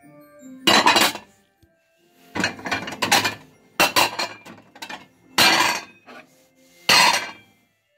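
Porcelain plates clattering and scraping against each other as they are lifted from a stack and set back down, about five times, over faint background music.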